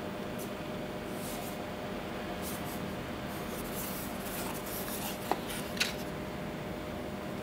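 Handling of an Original Grain wooden watch box: light rubbing and scraping of wood as the lid is slid off and the box is opened, with two small clicks about five seconds in. A steady background hum runs underneath.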